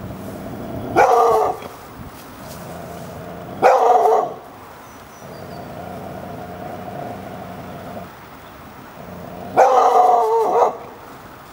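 A mixed-breed dog barking three times: short barks about a second in and at about four seconds, then a longer, drawn-out bark near the end.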